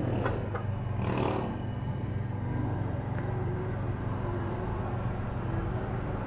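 Petrol-station fuel dispenser pump running with a steady hum while a scooter's tank is filled, with a short hiss about a second in.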